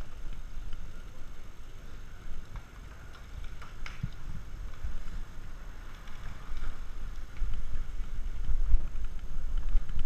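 Wind rumbling on an action camera's microphone as a road bike gets moving, louder over the last few seconds, with a few faint clicks.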